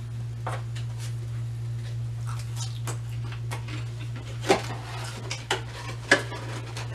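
Cardboard food box being handled: faint rustling and tapping, then a few sharp cardboard snaps in the second half as the lid is closed and the box folded, over a steady low hum.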